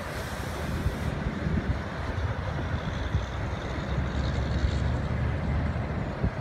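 Wind buffeting the microphone: an uneven, gusting low rumble with hiss above it.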